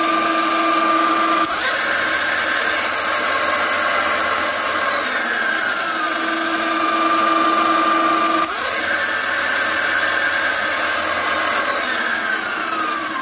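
Sur-Ron X electric dirt bike's motor and drive running up at full throttle with a steady whine. The pitch jumps up twice as the rocker switch puts it into high power mode, and it glides back down each time it is switched back to low power.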